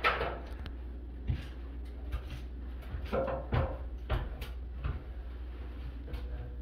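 Scattered knocks, clunks and rustles as a painter climbs an aluminium stepladder with a spray gun and hose, over a steady low hum.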